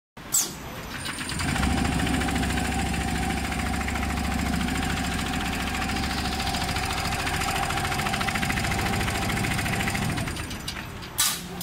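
Computerized multi-needle chain-stitch mattress quilting machine stitching at speed (1200 rpm): a fast, even mechanical clatter from its needle bars with a steady whine. It builds up about a second in, holds steady, and winds down near the end. There is a sharp click just before it starts and two more sharp clicks at the very end.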